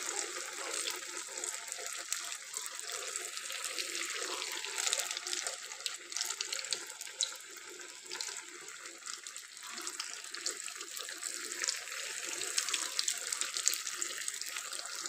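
Breadcrumb-coated potato cutlets deep-frying in hot oil: a steady sizzle dotted with small crackling pops.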